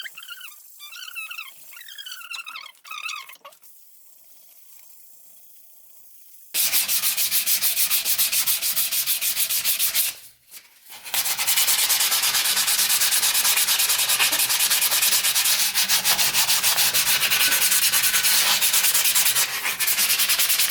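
Wet 2000-grit sandpaper strip rubbed back and forth in rapid strokes on an aluminium fork lower leg, wet-sanding it before polishing. The sanding starts about six seconds in, breaks off briefly near the ten-second mark, then resumes.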